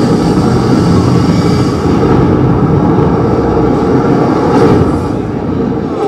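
Fighter-jet engine noise from a film soundtrack, played through a big outdoor screen's speakers: a steady, loud rumble that eases slightly near the end.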